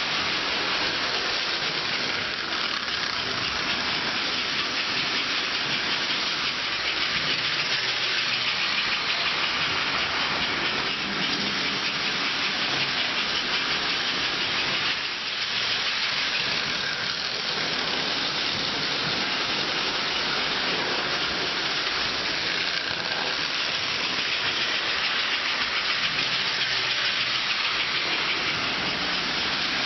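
Toy electric trains running on metal track: a steady, noisy whir of motors and wheels with no pauses.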